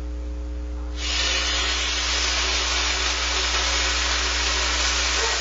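Raw bacon sizzling in a hot frying pan: the sizzle starts suddenly about a second in as the first strip hits the pan, then holds steady.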